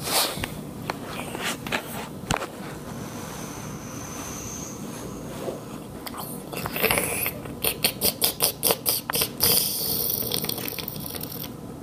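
A plush toy's fur rubbing and scraping against the phone's microphone. About two-thirds through comes a quick run of about ten sharp smacking clicks, roughly five a second: mock chomping as the toy pretends to eat.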